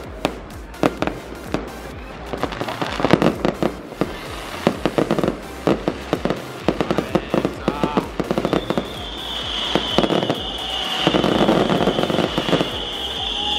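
Fireworks display: aerial shells bursting in a rapid, irregular string of bangs. About two-thirds of the way through, a steady high-pitched hiss joins the bangs.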